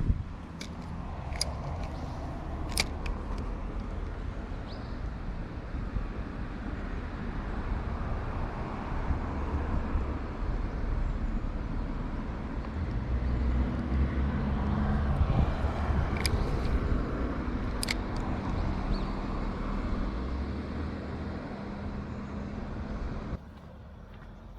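Steady low rumble of a motor vehicle running, with a few sharp clicks; it cuts off abruptly near the end.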